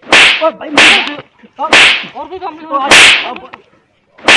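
A man being slapped repeatedly: five loud, sharp slaps about a second apart, each followed by a short cry from the man being hit.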